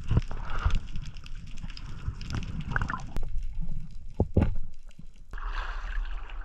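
Water sloshing and splashing close to the microphone, with scattered knocks and thumps.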